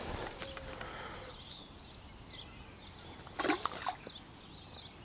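Faint outdoor ambience with a few thin bird chirps, and one short splash of water about three and a half seconds in, the loudest thing here.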